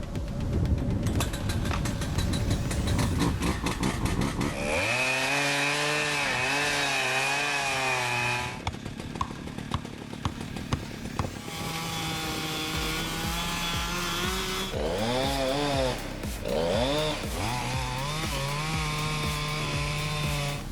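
Chainsaw engine running and being revved, its pitch holding steady for stretches and swinging down and up several times in the second half.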